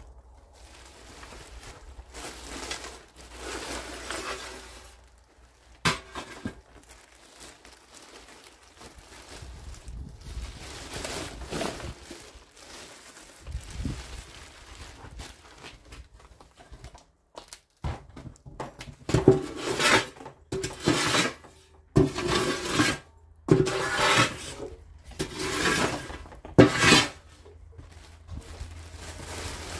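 Burnt debris and broken glass being cleared by hand: irregular scraping and clinking, a sharp knock about six seconds in, then a run of loud scraping, clattering strokes about once a second through the second half.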